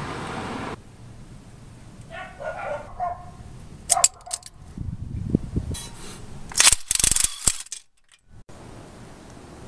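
Hand tools on a car engine: a socket on an extension clinks against the bolts about four seconds in, and a burst of rapid ratchet-like clicking comes near seven seconds. Before that, a dog barks a few times in the background.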